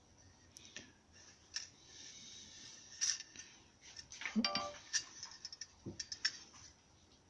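Light clicks and taps of a small tin-can wood-pellet burner being turned over and handled in the hand, with a brief pitched sound about halfway through.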